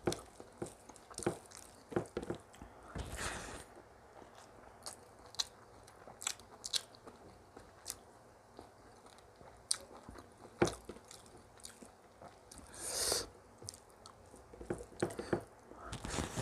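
Close-miked eating: a person chewing and biting into rice with buffalo curry and pickle, with many small wet clicks and crunches and three longer noisy bursts, about 3, 13 and 16 seconds in.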